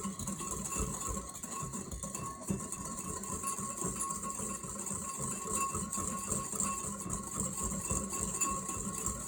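A whisk stirring a thick lemon glaze in a bowl: a fast, even run of small scraping clicks that keeps on without a break.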